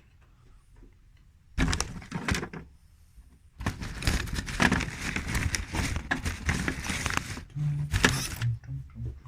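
Metallic clattering, rattling and knocks from a bicycle and workshop tools being handled, a short burst about a second and a half in, then steady clatter from about three and a half seconds in until near the end.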